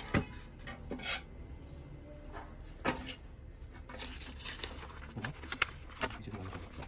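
Scattered clicks and knocks of hard plastic and a metal screwdriver as a Ricoh MP 401/402 drum unit is handled during reassembly. There are about half a dozen separate sharp clacks at irregular intervals.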